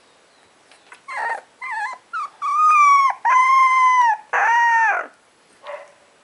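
Puppy howling: a few short whimpering yelps, then three long high howls in quick succession, each under a second.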